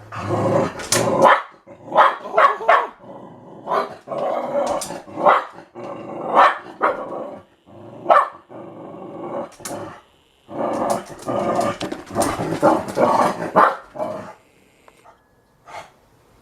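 Dog barking over and over, with some growling, at a squirrel; the barks come in quick runs and stop about two seconds before the end.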